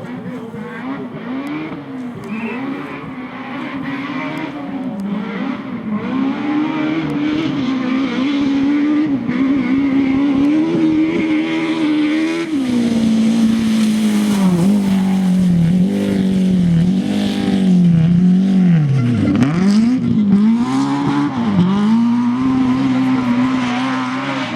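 BMW E30 rally car engine revving hard under full throttle, its pitch climbing through each gear and dropping sharply at shifts and lifts; the note grows louder about six seconds in, with several quick drops and climbs near the end.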